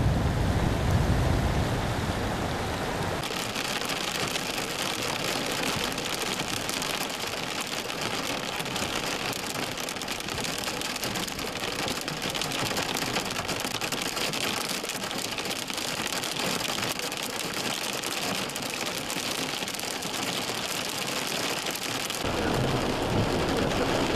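A small hatchback pushing through floodwater, engine and splashing, for the first three seconds. Then heavy rain falling steadily on the chase vehicle, a dense even hiss of drops. A deeper rushing sound comes back near the end.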